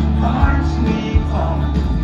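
Live amplified country music from a concert stage: a singer over a full band, with a heavy bass line and a kick-drum beat.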